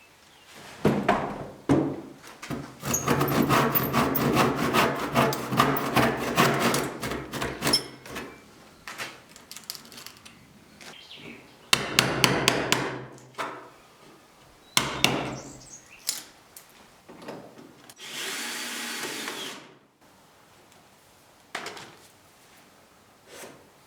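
Woodworking tool work on wood: a long run of rapid scraping or sawing strokes, several shorter bursts, and a steady noise lasting about two seconds near the end.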